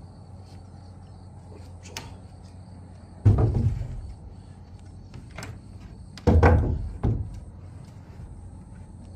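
Two heavy thumps about three seconds apart, each dying away over about half a second, with a few lighter knocks between them, over a steady low hum. They fit wooden building work, such as timber being knocked or set down.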